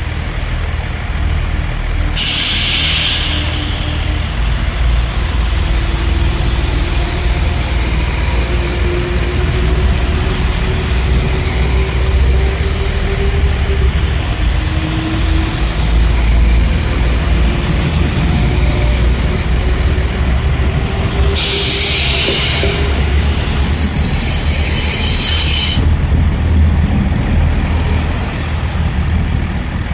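Chiltern Railways Class 172 diesel multiple units pulling out and passing close by, with a steady low diesel rumble. The engine note climbs, drops back about fourteen seconds in and climbs again as the train accelerates. Two bursts of high-pitched hissing come about two seconds in and again around twenty-one seconds in.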